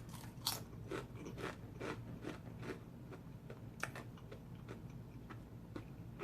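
A person chewing a mouthful of sub sandwich close to the microphone: irregular soft crunches and wet mouth clicks, a few a second.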